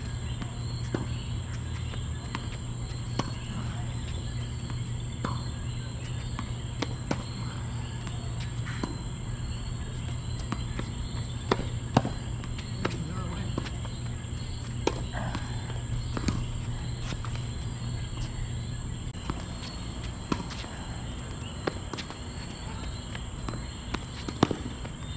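Tennis ball struck by a racket and bouncing on a hard court during a rally, sharp pops every one to two seconds over a steady low hum.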